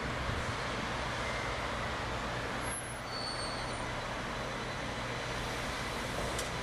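A 700 Series Rail Star Shinkansen train rolling slowly into the platform as it arrives, a steady rumble and hiss with a low hum, and a couple of brief high tones about halfway through.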